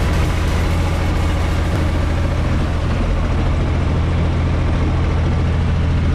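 UTB 445 tractor's diesel engine running steadily at a constant speed, heard from inside the cab.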